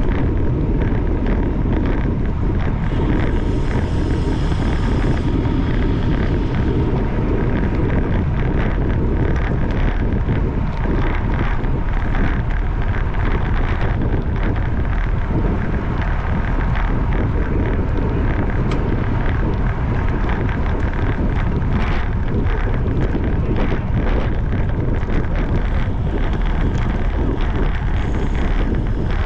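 Wind buffeting the microphone of a camera riding along in a bicycle race at speed: a steady, heavy low rush with no let-up.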